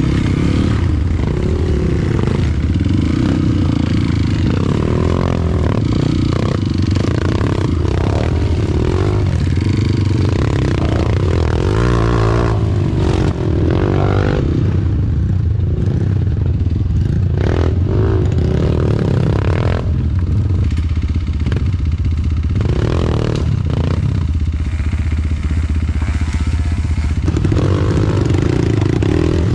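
Motorcycle engine running continuously while the bike is ridden, with clattering mixed in.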